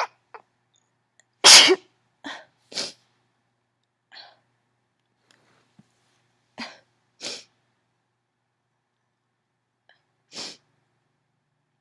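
A woman's allergy sneezing fit: one loud, open sneeze about a second and a half in, then a string of shorter, quieter, mostly stifled sneezes spaced out over the following seconds.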